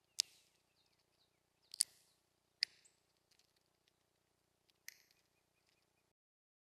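Birds chirping: four loud, sharp, very short calls spaced a second or two apart, with softer chirps between them. The sound cuts out abruptly near the end.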